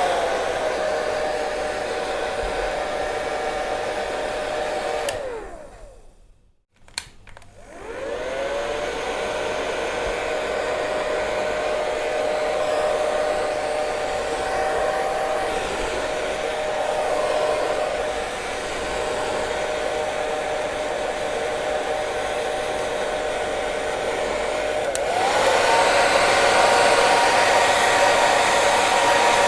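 Hair dryer running with a steady motor whine and rush of air. It drops to a lower speed at the start, winds down to silence about six seconds in, clicks, and spins back up. Near the end it rises to a higher speed.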